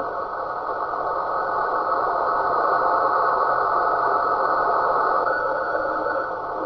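Radio receiver audio of a strange noisy signal, the 'snoring' sound: a steady rushing hiss in the lower-middle range that swells slowly and dips briefly near the end.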